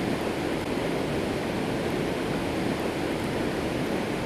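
Steady rushing of turbulent river water pouring through a dam spillway.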